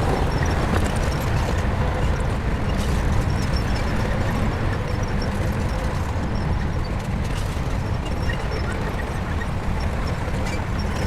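Shantui bulldozer's diesel engine running steadily, with scattered short clanks.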